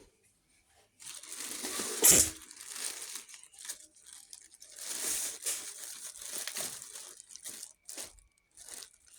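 Crinkling and rustling close to the microphone, in irregular bursts, with one sharp, loud crackle about two seconds in.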